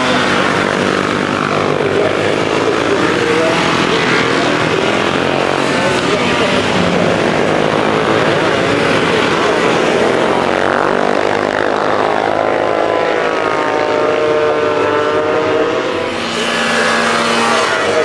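Engines of vintage racing sidecar outfits and a three-wheeler cyclecar running hard through a corner, loud and continuous, their pitch rising and falling with throttle and gear changes as they pass.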